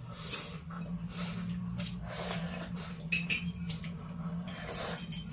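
Close-up eating sounds: spaghetti slurped and chewed, with light clinks of forks on plates, over a steady low hum.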